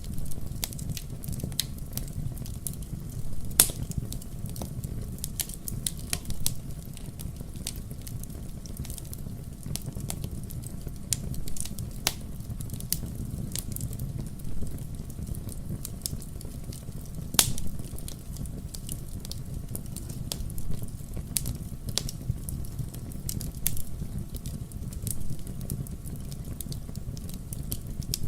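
Fire burning in a fireplace: a steady low rumble of flame with frequent crackles and a few louder pops.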